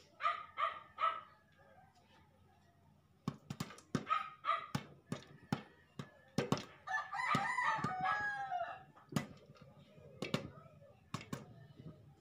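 Popcorn kernels popping in a covered pan: irregular sharp pops through the whole stretch. A rooster crows for about two seconds near the middle, and short chicken calls come at the start.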